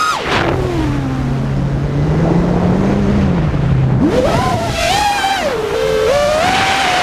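FPV quadcopter's brushless motors on a 4S battery, heard from the onboard camera with wind rush. The motor whine drops sharply as the throttle is cut just after the start. It stays low for about four seconds, then climbs steeply as the throttle is punched and wavers up and down.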